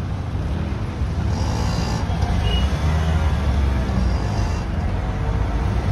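Low, steady rumble of road traffic idling at a railway level crossing: car and motor scooter engines waiting as the boom barrier goes up.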